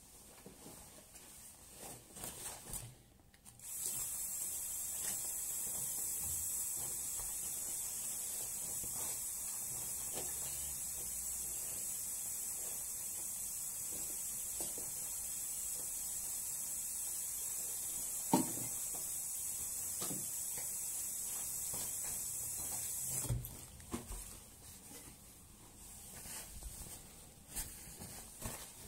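A steady spraying hiss of running water, most likely a shower spray rinsing down the bathroom during cleaning. It starts a few seconds in, runs for about twenty seconds and cuts off suddenly, with a sharp knock partway through.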